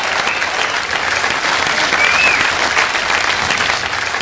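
Comedy club audience applauding steadily, with a brief high call that rises and falls about two seconds in.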